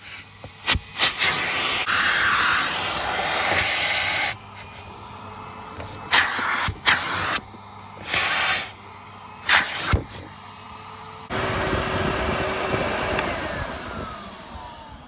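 Numatic NVH vacuum cleaner running on a car seat. Its suction noise surges loud and drops back again and again in uneven bursts. Near the end a whine slides down in pitch and the noise fades away.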